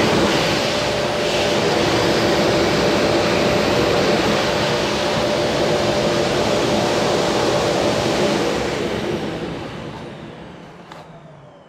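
Qilive vacuum cleaner running with a steady whooshing hum, then switched off about eight and a half seconds in, its motor winding down with a falling whine.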